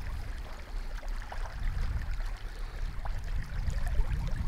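Wind buffeting the microphone outdoors as a low, uneven rumble, with a few faint rustles and ticks.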